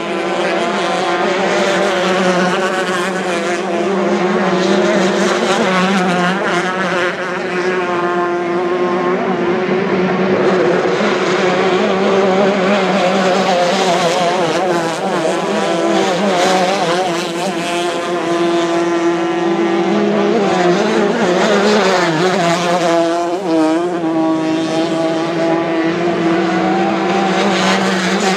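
Several F-350 class racing hydroplanes' outboard engines running at high revs together, a loud, steady engine note made of overlapping pitches that waver up and down as the boats round the turn buoys.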